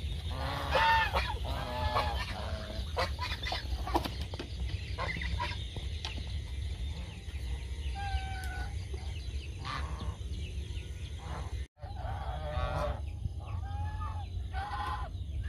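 Domestic geese honking in short calls, several at a time, over a steady low rumble. The sound drops out for an instant about two-thirds of the way through.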